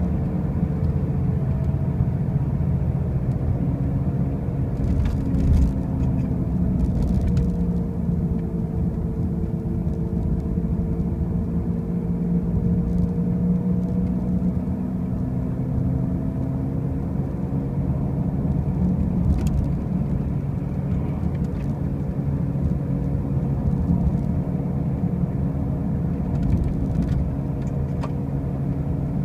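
2005 Pontiac Grand Prix being driven, with a steady low drone over road noise whose pitch drifts slowly up and down with speed, and a few faint clicks. It is the loud noise that the owner cannot explain, since the car already has new wheel bearings and new tires.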